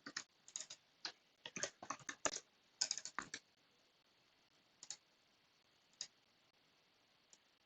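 Computer keyboard and mouse clicks: a quick run of taps in the first few seconds, then a few single clicks spaced further apart.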